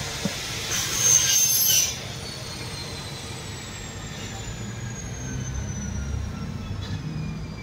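Workshop noise: a high-pitched whine that slowly falls in pitch, with a loud burst of hiss about a second in that lasts about a second.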